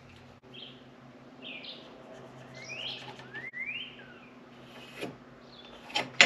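Songbirds chirping: a few short, rising and falling whistled notes. Near the end come a few sharp clicks, the last and loudest just before it ends.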